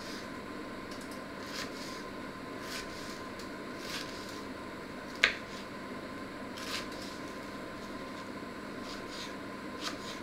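Small kitchen knife tapping on a wooden chopping board while dicing a peeled hard-boiled egg: a handful of scattered knocks, the sharpest a little past five seconds in, over a steady faint hum.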